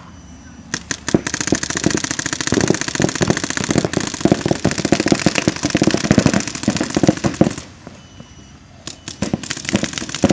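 Paintball markers firing in rapid strings, many shots a second. The firing stops about seven and a half seconds in and starts again about a second later.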